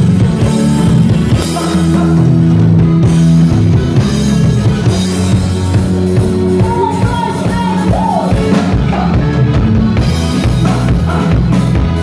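Live band playing loud through a PA: a drum kit keeping a steady beat under electric guitar and accordion, with a man singing into a handheld microphone.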